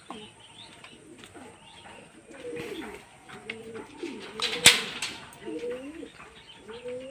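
Domestic pigeons in a loft cooing over and over, low rolling calls. One sharp clack cuts through about two-thirds of the way in.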